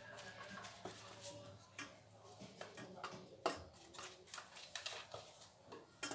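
Silicone pastry brush dabbing melted ghee onto galash (phyllo) sheets in an aluminium tray, with faint soft pats and crinkles of the pastry and a sharper tap about three and a half seconds in.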